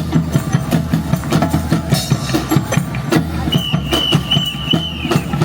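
Show music over loudspeakers with a fast, steady drum beat over a sustained bass. A high note is held for about two seconds near the end.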